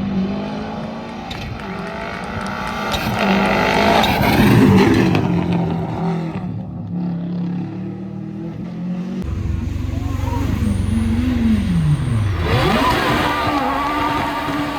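Rally car engines running hard as the cars pass at speed. One is loudest about four to five seconds in. Later an engine's pitch drops sharply and climbs back, as when a driver lifts off and brakes, then accelerates hard again.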